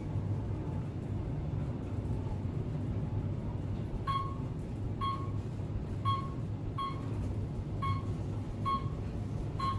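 Otis Elevonic 411M elevator car travelling, a steady low hum of the ride. From about four seconds in, a short high beep sounds roughly once a second, the car's floor-passing tone.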